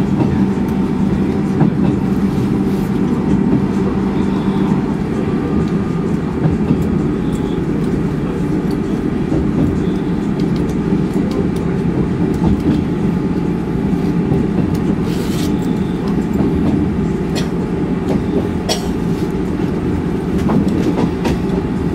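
Passenger train running at speed, heard from inside the carriage: a steady low rumble with a faint hum, broken by a few sharp clicks in the second half.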